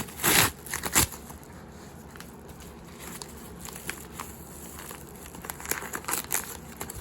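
Packing material being crumpled and rustled by hand while a parcel is unpacked: two loud rustles in the first second, then scattered small crackles and rustles that pick up again near the end.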